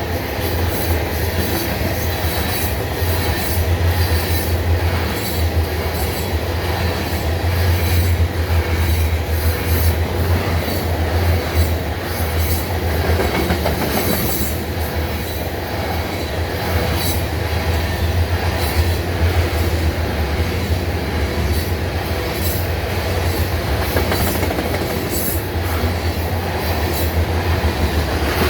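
Grain train's covered hopper cars rolling past at speed: a steady heavy rumble with a continuous rattle of clicks as the wheels cross the rail joints.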